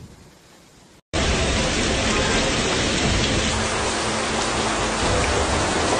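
Heavy typhoon rain with wind, a dense steady hiss that cuts in suddenly about a second in after a brief moment of quiet.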